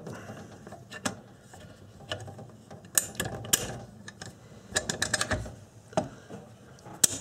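Clicks and light scraping of AR-15 upper and lower receivers being lined up and fitted together by hand, with scattered sharp clicks and a quick cluster of them about five seconds in.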